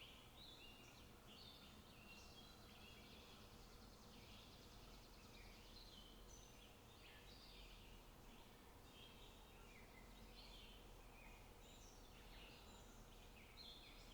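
Faint chorus of small birds chirping and twittering, with many short overlapping calls throughout.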